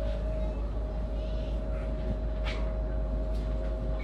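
Running noise heard inside an S-Bahn electric train: a steady low rumble under a constant whine, with a couple of sharp clicks.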